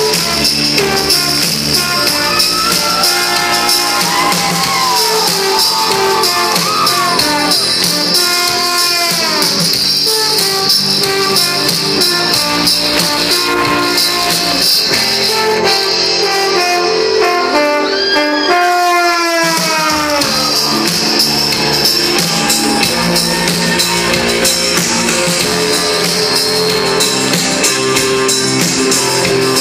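Live band playing an instrumental passage with electric guitars, drums, bass and tambourine, heard from within the crowd. A lead line of bent, gliding notes runs over the groove, and about eighteen seconds in the bass and low end drop out briefly under falling glides before the full band comes back.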